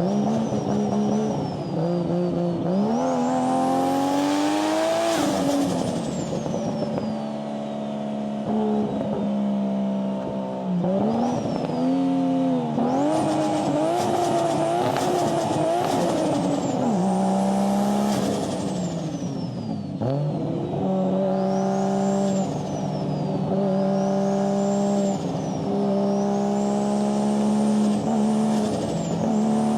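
Sports car engine revving up and down repeatedly, its pitch climbing and dropping several times. Above it a high whine rises and falls again and again, most of all in the second half.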